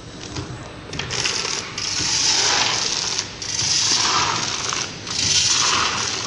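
Roasted-bean vertical packaging machine with a measuring-cup filler starting up and running: a dry rattle of beans against its stainless-steel hopper. It begins about a second in and repeats in stretches of about a second and a half with short breaks between.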